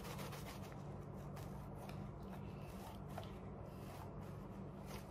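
Homemade slime being stretched and squished by hand, giving faint, quick sticky crackles, over a steady low hum.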